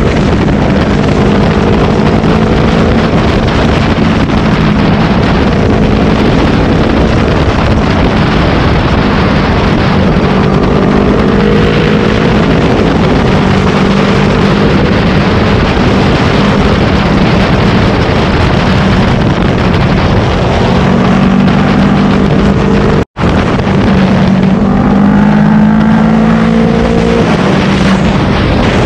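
Yamaha R3's 321 cc parallel-twin engine running under a rider's throttle, its pitch drifting up and down, with wind rushing over the onboard microphone. The sound cuts out for a split second about twenty-three seconds in.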